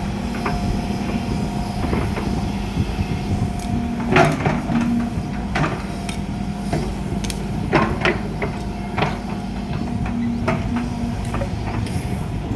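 Diesel engine of heavy earthmoving machinery running steadily at a constant pitch, with intermittent metallic knocks and clanks.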